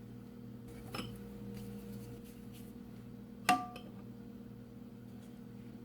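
Quiet kitchen handling over a steady low hum: a soft click about a second in, then one sharp tap that rings briefly, from dishware being handled while dough balls are set into a greased pan.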